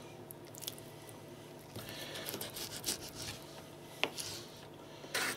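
Small Wenger pocket knife slicing part-frozen raw chicken breast on a plastic cutting board: faint, scattered scrapes and taps of the blade, with a sharp tap about four seconds in and a louder short scrape just before the end.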